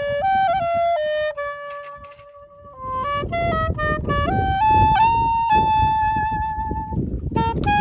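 Saxophone playing a slow melody of long held notes, rising step by step in the second half. A low rumbling noise comes in underneath about three seconds in.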